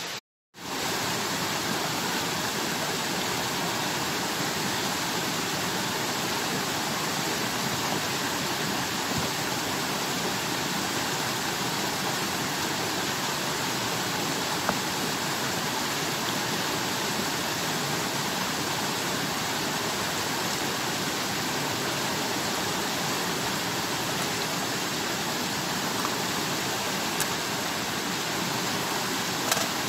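Steady rushing of running water, with a few faint ticks, after a brief dropout at the very start.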